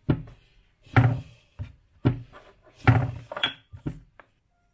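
Thuds and knocks on a wooden cutting board as bun dough is pressed flat by hand and worked with a wooden rolling pin: about seven separate strikes, the loudest about one second and three seconds in.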